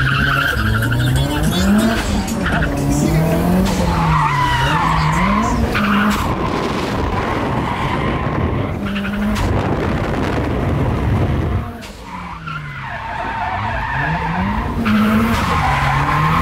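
Nissan Silvia drift car heard from inside the cabin on a drift run. The engine revs rise and fall again and again as the car is held flat out through left-right transitions, with tyre screech throughout. The revs drop briefly about twelve seconds in, then build again.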